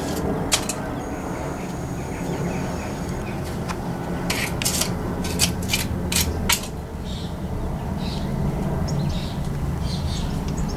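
Steady low outdoor background rumble, with a quick series of sharp clicks about four to six seconds in.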